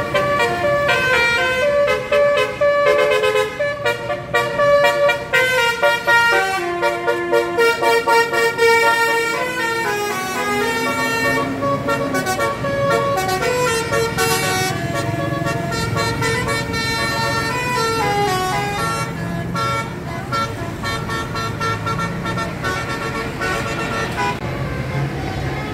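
Indonesian 'telolet' bus horns, multi-trumpet air horns, playing quick melodic runs of changing notes in short toots. They are loudest and busiest in the first ten seconds, then sound more softly over the noise of the bus engine.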